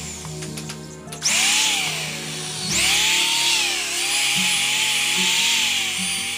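Handheld electric drill boring into a wooden door-frame timber. Its motor whine rises and dips in pitch as the bit bites. It starts about a second in, eases off briefly near the middle, then runs again, over background music.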